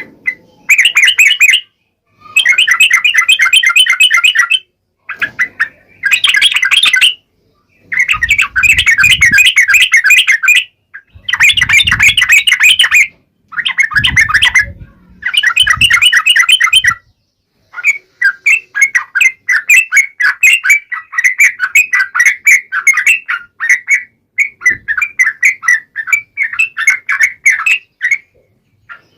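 Yellow-vented bulbul (trucukan) singing loudly in fast, chattering wild-style phrases. Runs of rapid notes last a second or two, with short breaks between them, and the song runs on more continuously in the last third.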